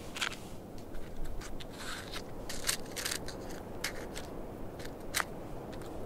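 Steady wind rumble, with an irregular string of sharp crackles and clicks from small items being handled in the hands.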